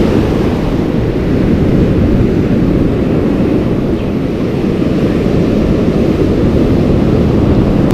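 Ocean surf washing through the shallows, mixed with wind rumbling across the microphone: a steady, loud rush with no distinct events.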